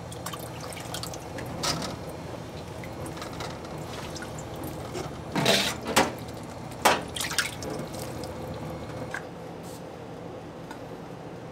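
Water sloshing and dripping as raspberries are swirled by hand in a steel bowl of water and scooped out with a mesh strainer, with a few louder splashes about five to seven seconds in.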